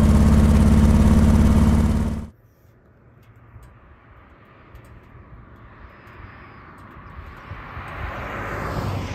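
Harley-Davidson Heritage Classic's Milwaukee-Eight 114 V-twin with a Rinehart exhaust running steadily on the move, cut off abruptly about two seconds in. Then a small car approaching, its engine and tyre noise swelling toward the end.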